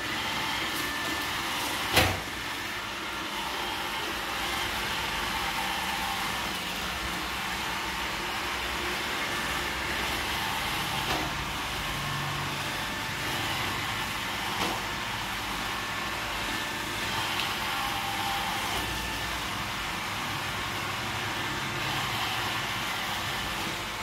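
iRobot Roomba 880 robot vacuum cleaning a hard tile floor, its vacuum and brush motors running with a steady hum and hiss. There is one sharp knock about two seconds in and a couple of faint clicks later on.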